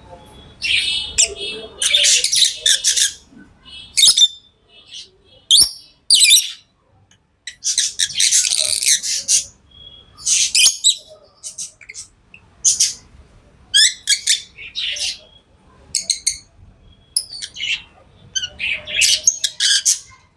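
Pet lovebirds calling: high, harsh chirps and squawks that come in repeated bursts, each up to about a second long, with short pauses between.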